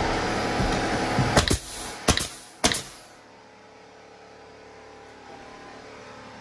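A few sharp knocks, about one and a half to two and a half seconds in, as nails are driven into a wooden shelf cleat on a closet wall. Under them is a steady hum that dies away about three seconds in.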